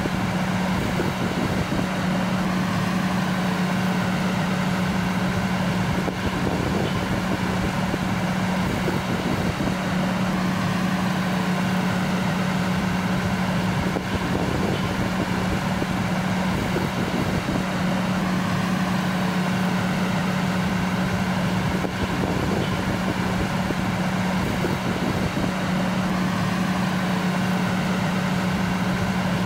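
Idling fire engine running steadily, a constant low hum over a continuous engine noise.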